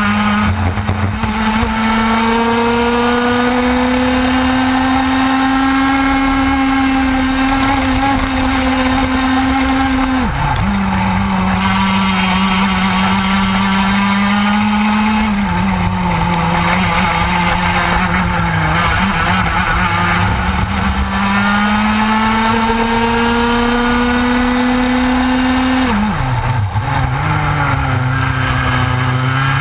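Onboard sound of a TKM two-stroke kart engine at racing speed. The revs climb slowly along the straights and drop sharply off the throttle into corners, about ten seconds in and again near the end.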